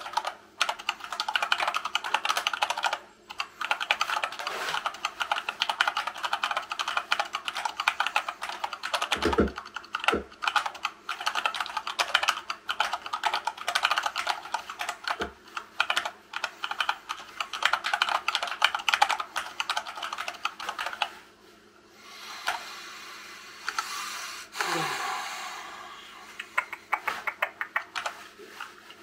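Fast touch-typing on a hand-wired split Dactyl Manuform keyboard with silicone-lubed Gateron Brown tactile switches: a dense, continuous patter of key presses, with a couple of low thumps near the middle. The typing stops about two-thirds of the way through, followed by a few seconds of a softer, steadier sound and a few scattered clicks.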